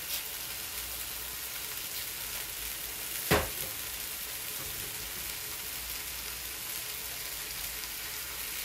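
Chicken breasts sizzling steadily on a stovetop griddle pan, just sprayed with cooking oil so they don't burn. One sharp knock sounds about three seconds in.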